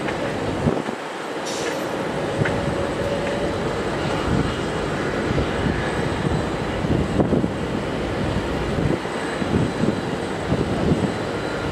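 Steady rumble of jet aircraft engines on the airport apron, with a faint high whine over it. Wind buffets the microphone, making the low end rise and fall unevenly.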